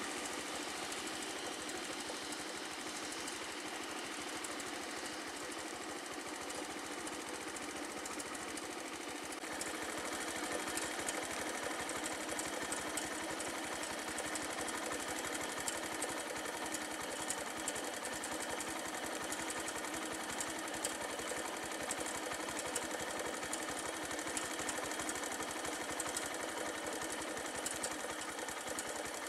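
A vehicle engine idling with a steady, fast rattle, growing a little louder and harsher about ten seconds in.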